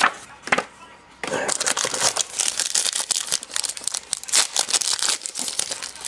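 Football trading cards being flipped through and slid against one another in the hands, a quick run of light flicks and rustles starting about a second in.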